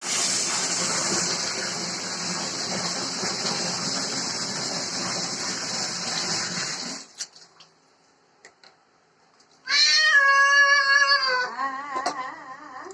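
Running water for about seven seconds during a cat's bath, then it stops; a few seconds later the cat gives one long, loud meow that wavers in pitch.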